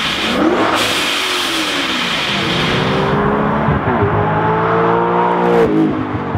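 Sports-car engines in turn: first a C7 Corvette's V8 with a falling engine note, then an Audi R8 accelerating hard. The R8's revs climb steadily for about three seconds and break off sharply near the end at a gear change, then pick up again lower.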